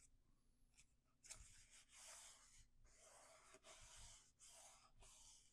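Near silence with faint rustling and sliding of cardstock pieces under the hands, a few soft scrapes from about a second in until near the end.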